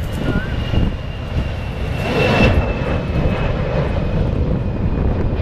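Airbus A320's twin jet engines at takeoff power as the airliner lifts off and climbs out: a steady loud roar with a high fan whine that falls slightly in pitch and peaks about two seconds in.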